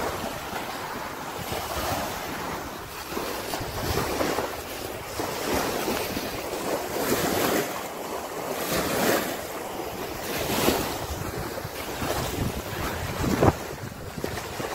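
Small waves breaking and washing up a sandy beach, swelling and easing every second or two, with wind buffeting the microphone. A single sharp bump near the end.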